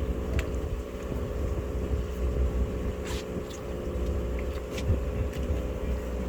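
Boat engine running steadily, a constant low rumble, with a few faint clicks over it.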